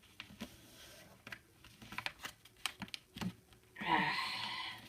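A sheet of paper being folded by hand: light crinkles and taps, then near the end a louder sliding rustle of about a second as a fold is pressed down.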